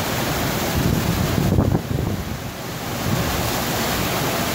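Steady rush of water from a FlowRider surf simulator, its pumped sheet of water pouring up the ramp, with wind on the microphone. The rushing dips briefly about two seconds in.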